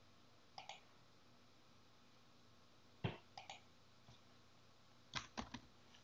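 Scattered computer mouse clicks and keyboard keystrokes in a quiet room: a double click about half a second in, a sharp click about three seconds in with two lighter ones after it, and three quick keystrokes just after five seconds.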